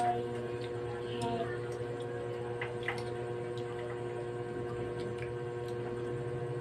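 Light scattered clicks and taps of a fork against plates over a steady low hum.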